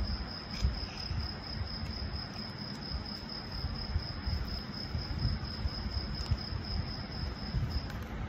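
An insect, most likely a cricket, chirring in a steady, finely pulsing high-pitched trill that stops just before the end, over a low rumble and a few faint handling clicks.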